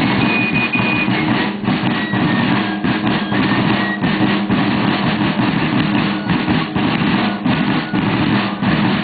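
A corps of rope-tension field snare drums playing a steady, rapid military cadence, with a few short high held notes over the drumming.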